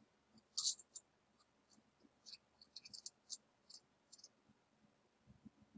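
Quiet clicks and light scrapes of a metal laboratory clamp being handled and tightened around a small box: a quick cluster of sharper clicks about half a second in, then a run of lighter, irregular clicks that stops about four seconds in.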